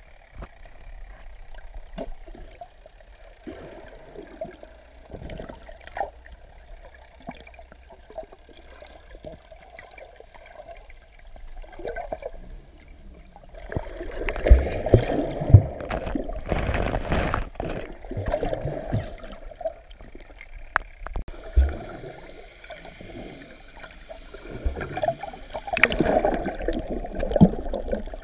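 Muffled water sound heard from a camera held underwater: swirling and bubbling with scattered clicks and a few low knocks. Faint at first, it grows louder and busier about halfway through, eases briefly, then picks up again near the end.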